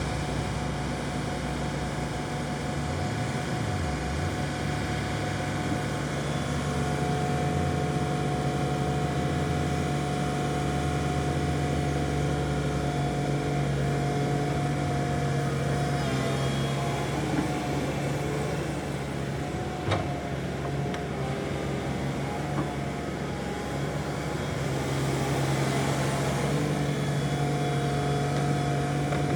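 Construction machinery engines running with a steady hum, dipping briefly in pitch about three seconds in, with a sharp click about twenty seconds in.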